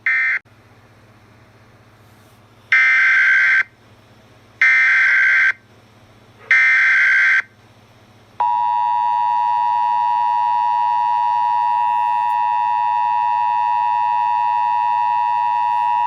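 Emergency Alert System tones. A short raspy data burst right at the start ends the previous alert. Then come three buzzing SAME header data bursts of about a second each, about two seconds apart, and about eight seconds in the steady two-tone EAS attention signal (853 and 960 Hz) begins and holds to the end, announcing a new alert.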